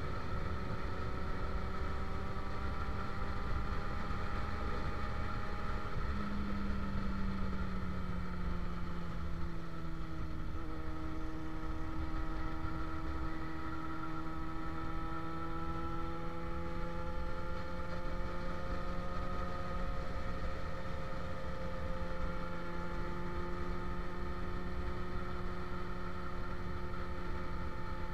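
Motorcycle engine running at steady cruising revs over low wind rumble on the microphone. Its pitch dips a little about a third of the way in, then rises slowly again.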